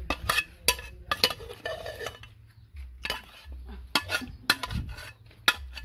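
Boiled blue crabs being tipped from a metal cooking pot into a steel basin: irregular clinks and clatter of crab shells and the pot's rim against the metal.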